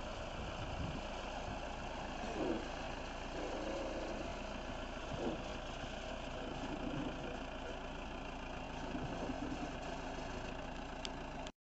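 Caterpillar backhoe loader's diesel engine running steadily as the machine drives, cutting off abruptly near the end.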